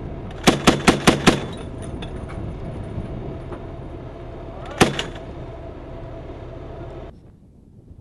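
A quick burst of five gunshots from an automatic weapon, about six a second, half a second in, then a single shot near the five-second mark, over the steady running of tracked armoured vehicles. The vehicle sound cuts off suddenly near the end, leaving a quieter background.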